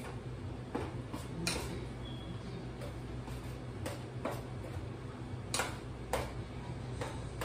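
A metal spoon knocking and clinking against a stainless steel saucepan as the food in it is stirred, several separate light knocks spread out over a few seconds. A steady low hum runs underneath.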